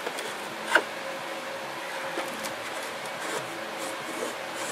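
Tools and metal parts being handled on a workbench: one sharp knock about a second in, then a few lighter clicks and taps over a faint steady hum.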